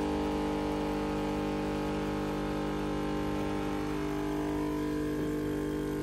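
Wonderchef semi-automatic espresso machine's pump running, a steady unchanging hum, as it pushes hot water through the ground coffee in the portafilter during a two-cup brew.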